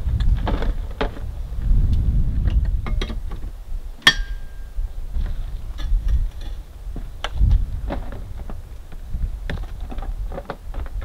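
Handling noise as a Starlink satellite dish, its stand and cable are lifted out of a plastic storage tote and set up: scattered clicks and knocks, with one sharp click and a brief ring about four seconds in, over a low rumble.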